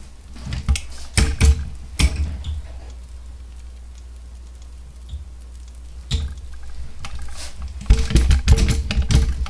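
Camera or phone being handled and moved: clusters of clicks and bumps with deep rumble on the microphone in the first couple of seconds and again over the last few seconds, and a faint steady hiss in between.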